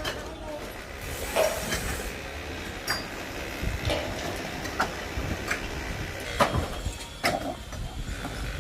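Construction-site work noise: scattered irregular knocks and clinks over a low steady rumble.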